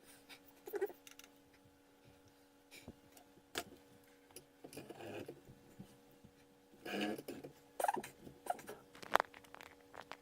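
Scattered small knocks, clicks and brief rustles of objects being handled and set down, over a faint steady electrical hum.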